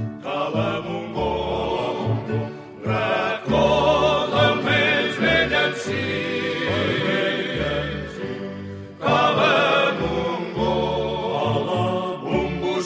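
A habanera sung by a vocal group with vibrato, over an accompaniment that repeats low bass notes. The voices pause briefly twice, about two and a half seconds in and again near the nine-second mark.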